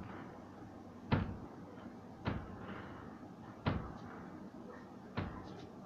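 Four short knocks, about one every second and a half, like a cupboard door or something hard being bumped.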